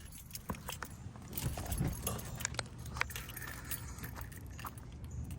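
Light jingling with scattered sharp clicks over a low steady hum.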